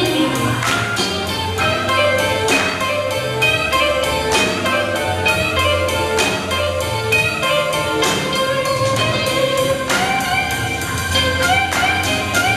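Blues music for dancing, with a slow steady beat accented about once a second.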